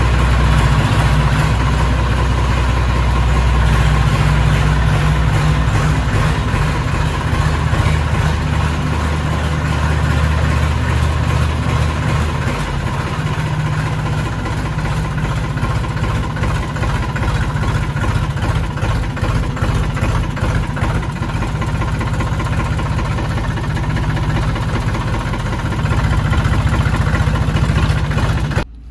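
Tractor's diesel engine running loud and steady as the tractor is driven out, its low note shifting about twelve seconds in and again near the end.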